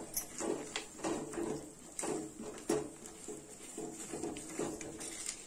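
Silicone spatula stirring and folding a thick mass of mango halwa in a non-stick kadai: soft, uneven slaps and scrapes a few times a second, with a couple of sharper clicks against the pan. The halwa is cooked to the stage where it comes away from the pan with the ghee separated.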